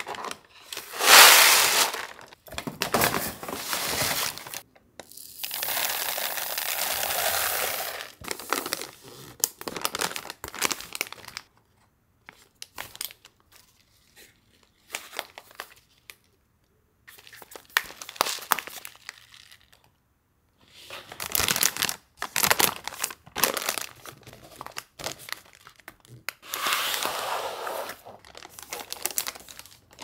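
Uncooked rice poured from a plastic measuring cup into a stiff paper rice storage bag, in a short loud pour about a second in and a longer one from about five to eight seconds, followed by the bag crinkling and rustling in short bursts as it is handled and pressed flat to push the air out before sealing.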